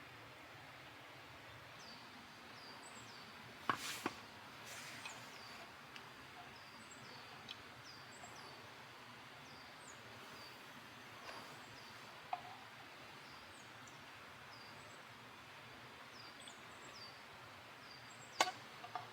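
Steady murmur of a stream, with a small bird repeating short, high, falling chirps. A couple of sharp knocks come about four seconds in, and another near the end.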